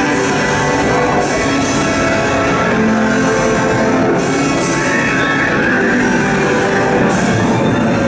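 Dramatic show music playing loudly through the dinosaur diorama, many sustained notes layered together, with short swells of hiss recurring every few seconds.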